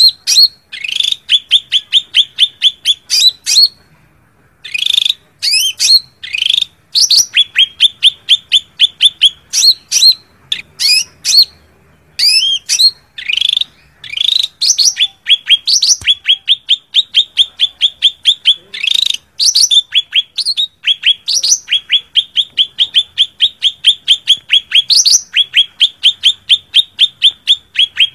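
Cucak ranting (blue-winged leafbird) giving its fighting challenge call: fast runs of short, repeated chattering notes, several a second, broken by sharp higher chirps, with brief pauses about four and twelve seconds in. This is the call played as a lure to draw a rival into a fight.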